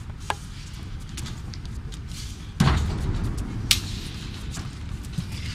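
A wrestler's body hitting the wrestling ring: one heavy thud on the ring about two and a half seconds in, followed about a second later by a sharp crack, with smaller knocks scattered around it.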